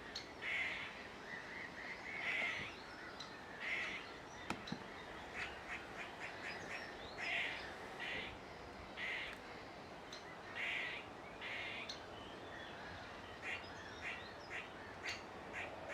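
Great spotted woodpecker fledgling begging: repeated harsh, rasping calls every second or two, with shorter sharp calls near the end.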